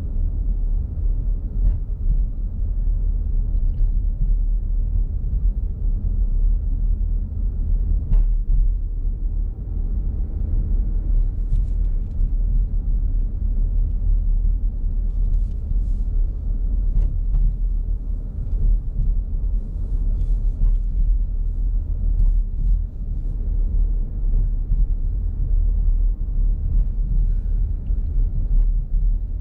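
Steady low rumble of a car driving, heard from inside the cabin, with scattered faint ticks and rattles.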